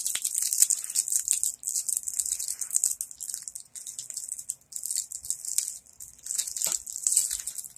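Plastic candy packaging crinkling and rustling in a hand, a busy crackle of many small clicks. It comes in two spells, with a short break about four and a half seconds in.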